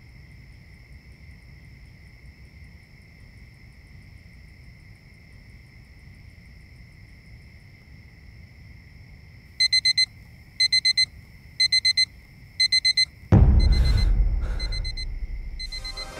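A digital alarm clock beeping in quick bursts, about one burst a second, starting some ten seconds in after faint steady high tones. A loud deep boom hits near the end and slowly fades while the beeping goes on.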